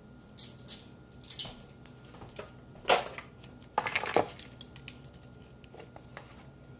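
Metal kitchen utensils and a container clinking and rattling in a string of short knocks, the loudest about three and four seconds in: a measuring spoon and jar handled to scoop shiitake mushroom powder.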